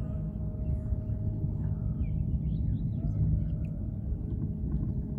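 Donut boat's small motor running steadily: a low rumble with a faint steady whine. A few faint high chirps come through in the middle.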